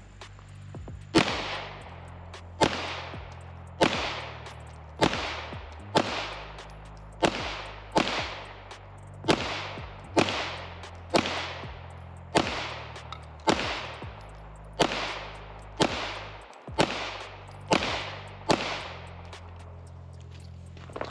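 Canik Mete 9mm pistol fired at a steady slow pace, about one shot a second, some seventeen shots in all. Each is a sharp crack that trails off over most of a second.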